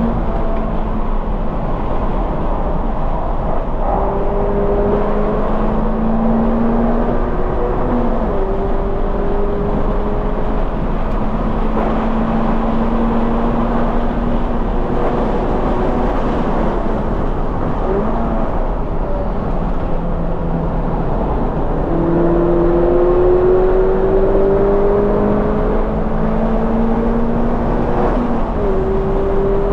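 2020 Toyota 86's flat-four engine at full throttle through a Corsa cat-back exhaust, its pitch climbing steadily and then stepping down at gear changes several times, over steady noise.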